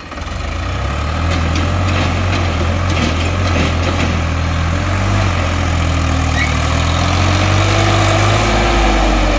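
Indo Farm 3035 DI tractor's diesel engine pulling a trailer away across sand. It swells about half a second in, then runs loud and steady.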